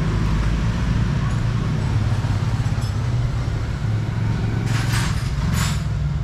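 Barber's scissors trimming a beard, with a few short, crisp snips about five seconds in, over a steady low background rumble.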